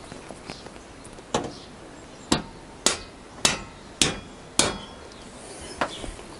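Hammer blows on the long steel engine through-bolt of a Honda CBR1000F, driving it out of the engine mounts: one blow, then five sharp ringing strikes about half a second apart.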